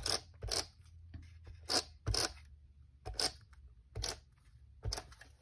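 Paper card, stencil and tape being handled: about seven short rustles and snaps, spaced unevenly, as tape is pulled off and pressed down.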